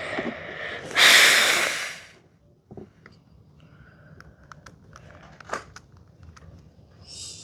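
A person's loud, noisy breath, a snort or sigh, about a second in, then scattered small clicks of a 6x6 puzzle cube's layers being turned.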